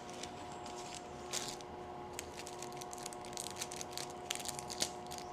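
Faint rustling and crinkling of a paper shopping bag and small jewelry packaging being handled, in short scattered bursts over a faint steady hum.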